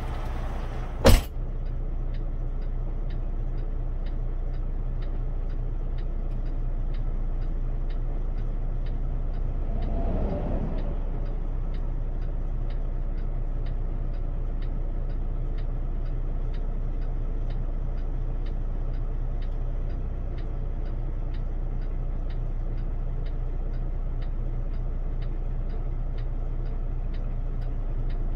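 Steady drone of a Kenworth T680 semi-truck heard from inside its cab while driving: engine and road noise. About a second in comes one sharp, loud click, the loudest sound, and around ten seconds in a brief swell. From about six seconds on there is a faint ticking about twice a second.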